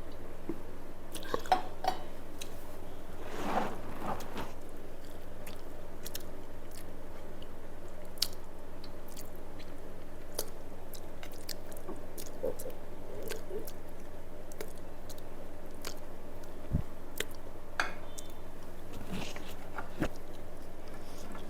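Close-up eating sounds: a person chewing a mouthful of rice with chutney, with scattered wet clicks and smacks of the mouth, over a steady low hum.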